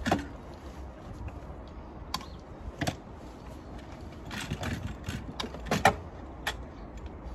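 A handful of sharp plastic clicks and knocks at irregular intervals as clips and tabs on plastic battery covers and terminal fittings are pushed, released and handled.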